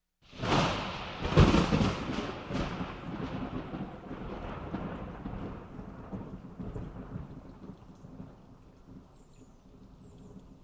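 Thunderclap sound effect: it starts suddenly out of silence, cracks loudest about a second and a half in, then rumbles and slowly fades away over the following several seconds.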